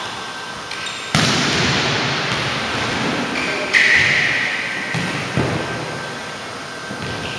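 Volleyball struck by hands and forearms as two players pass and set it, three sharp smacks about two seconds apart, each echoing through a large gymnasium.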